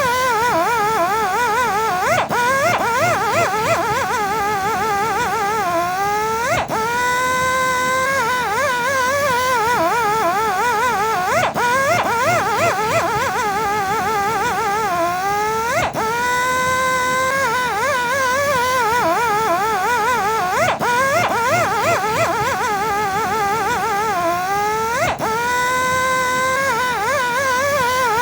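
Electric buffing and polishing machine whining under load, its pitch wavering constantly. About every four and a half seconds the pitch sags and then sweeps sharply back up.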